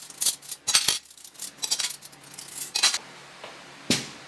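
Steel spoons and forks clinking as they are laid out on the table beside ceramic plates: a quick run of sharp clinks, then a single duller knock near the end as a serving bowl is set down.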